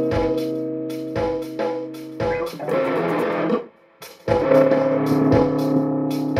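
Electric guitar played over a backing track with a kick drum beating about once a second. A little past the middle, a dense strummed passage ends and the music cuts out for about half a second, then the guitar and drums come back in.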